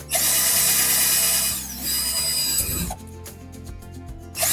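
Power drill running under load, boring a faucet hole through a kitchen sink: about three seconds of drilling with a brief dip in the middle, a short pause, then the drill starts again near the end.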